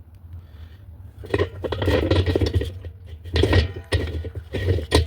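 A metal tool scraping and clinking against the washer's spin-tub nut as it is worked loose, in three clusters of short knocks.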